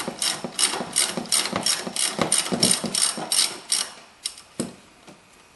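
Hand ratchet wrench clicking in a steady run, about three to four clicks a second, as it backs off a nut on top of the upper ball joint. The clicking stops a little before four seconds in, with two lone clicks after.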